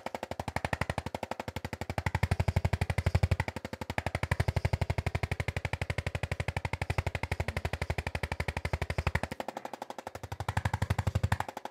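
Electric percussive chiropractic adjusting instrument tapping rapidly and evenly against the back, many strikes a second. A heavier low thudding comes and goes in stretches of a few seconds and drops out briefly near the end.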